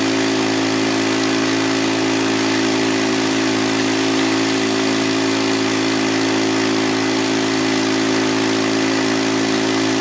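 Small gas engine of a portable suction gold dredge running steadily at a constant speed, driving the dredge's water pump, over the rush of the creek and the water spilling from the sluice.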